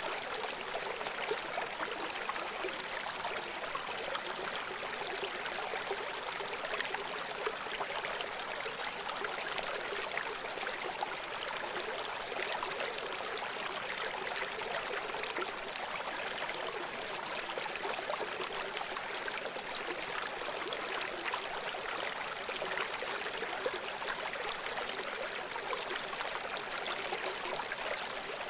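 Running stream: water splashing and trickling over rocks in a steady, even rush, with fine bubbling detail and little low rumble.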